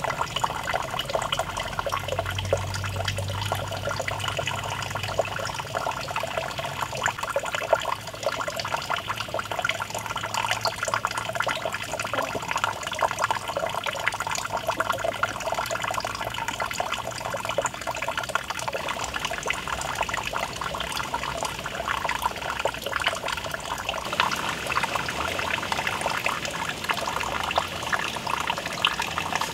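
Steady running water, trickling and splashing without a break, which cuts off suddenly at the end.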